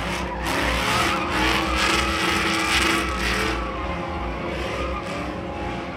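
Pickup truck doing donuts: the engine is held at high revs while the rear tyres spin and squeal on the asphalt, a bit louder in the first half.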